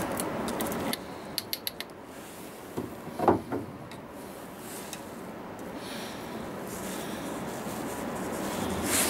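Light metallic clicks and rubbing from hands seating a .45 Long Colt bullet in the muzzle of a Hawken muzzle-loading rifle. A quick run of about five clicks comes after about a second and a half, and a short louder scrape follows a little after three seconds.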